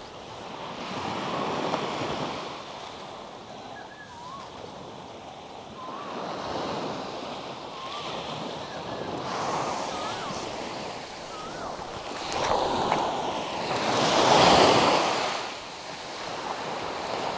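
Small waves breaking and washing up a sandy beach, the surf rising and falling in several swells, loudest a little after two-thirds of the way through, with some wind on the microphone.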